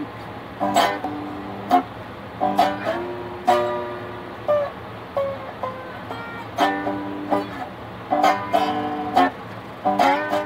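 Handmade cigar box guitar with a wine-box body, played unplugged with a metal slide: plucked notes and chords struck in short phrases, with a few notes sliding in pitch about halfway through.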